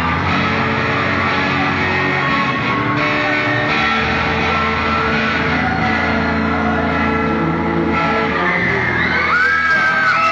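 Rock music with guitar playing, dense and steady, with a few high sliding tones near the end.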